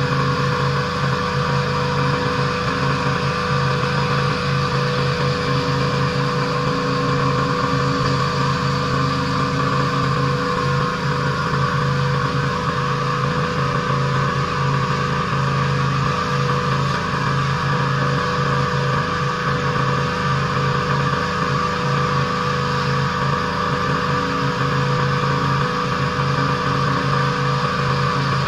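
Pressure washer running steadily at a constant engine speed, with the hiss of the water spray over the drone of the engine.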